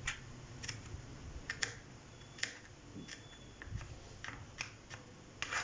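Kitchen knife slicing carrot on a plastic cutting board: a series of irregularly spaced sharp taps as the blade cuts through and strikes the board, the loudest near the end.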